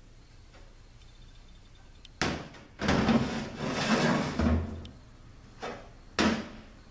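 Tools and parts being handled on a workshop bench. A sharp knock comes about two seconds in, then a couple of seconds of rattling and scraping like rummaging, then two more sharp clacks near the end.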